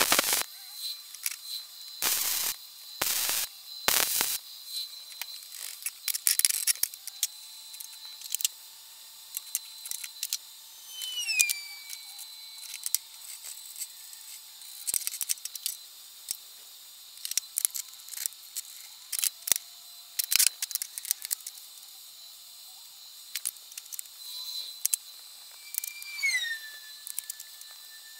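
Wire-feed (MIG) welder laying short tack welds on steel, three or four brief bursts of crackle in the first few seconds. Then scattered clicks and clinks of steel plates, nuts, threaded rod and magnetic welding squares being handled and set in place.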